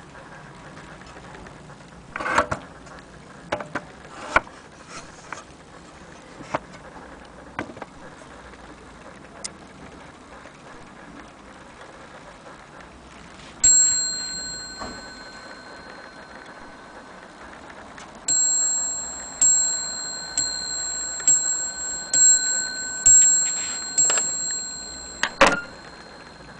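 Antique French mantel clock striking on its bell: one ringing strike about halfway through, then a run of about seven strikes roughly a second apart, each ringing on and fading. Before them come a few sharp knocks and clicks.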